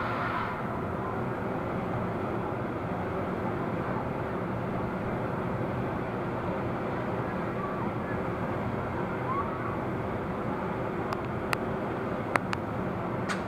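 A vehicle engine running steadily, with a few sharp clicks near the end.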